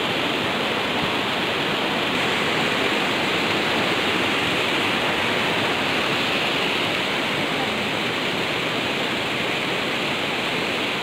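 Steady, loud rushing of a fast mountain river flowing under a footbridge.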